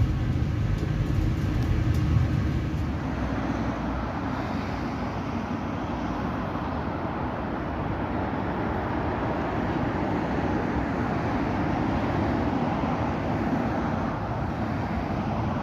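Steady low hum inside a diesel multiple-unit train carriage. After about three seconds it gives way to outdoor street ambience: a steady rush of road traffic.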